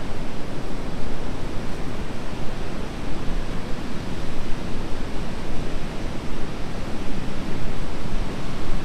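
Gulf of Mexico surf washing onto the beach, a steady rush of noise mixed with wind.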